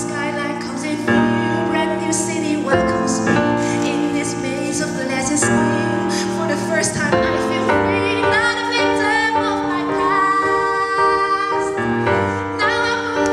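A woman singing long held notes into a microphone over piano chords that change every second or two; in the second half her voice wavers with vibrato on the held notes.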